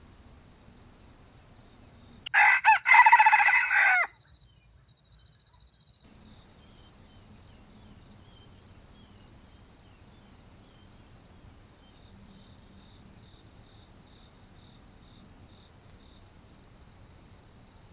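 A junglefowl rooster crows once, about two seconds in: two short opening notes and then a longer held note, about two seconds in all. Insects keep up a faint, steady, high trill behind it.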